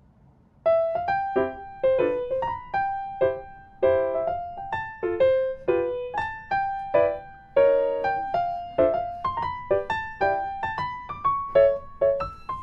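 Background music: a solo piano playing a melody over chords, starting about half a second in.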